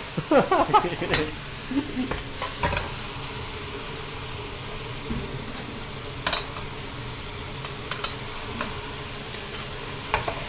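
Pork slices with ginger and galangal sizzling in a wok while a metal ladle stirs and scrapes them, with a few sharp clinks of the ladle on the pan. A brief voice sounds in the first second or so.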